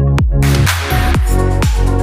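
Background electronic dance music with a steady beat about twice a second; a brighter, fuller section comes in about half a second in.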